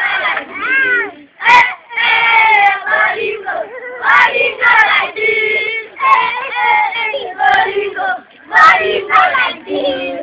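A group of young children's voices, many at once, singing and calling out close to the microphone. A couple of sharp knocks come through, about a second and a half in and again near the end.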